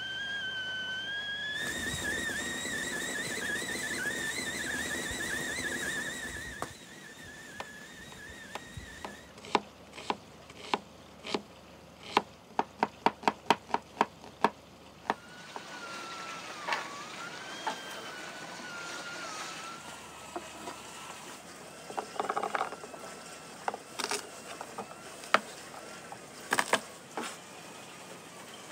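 Stovetop kettle whistling steadily over hissing steam, stopping about six seconds in. Then a kitchen knife chops on a wooden cutting board: a quick, even run of strokes slicing a red onion, and later scattered strokes mincing garlic, over a faint wavering whistle.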